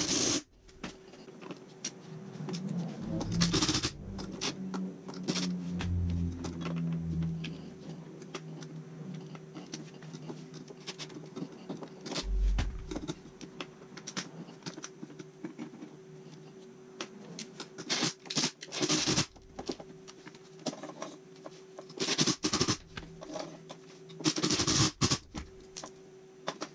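Workshop handling noise: scattered clicks, scrapes and knocks of tools and metal parts being picked up and set down, with a few louder clatters and a couple of dull thumps, over a faint steady hum.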